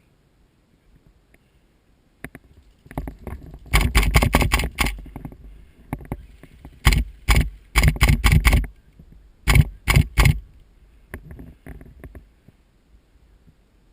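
Airsoft gun fired close to the microphone in quick runs of sharp shots, about five a second, in several groups starting about three seconds in.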